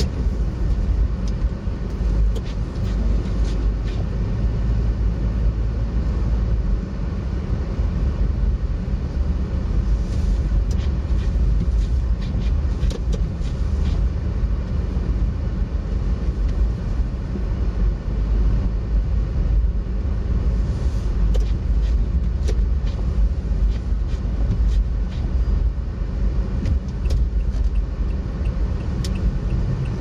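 Car driving on a snow-covered road, heard from inside the cabin: a steady low rumble of engine and tyres, with scattered small ticks.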